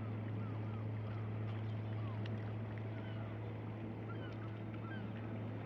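Small birds chirping repeatedly in short, quick gliding notes over a steady low drone.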